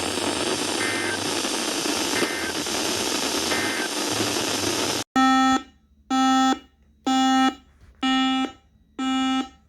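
Hiss-laden radio reception carrying three faint, short EAS data-header bursts about a second apart. It cuts off suddenly, and five loud electronic alert beeps follow, one about every second, each about half a second long.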